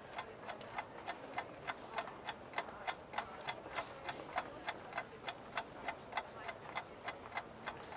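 Clock ticking at an even, quick pace, about three ticks a second, used as a sound effect for time passing in a waiting room.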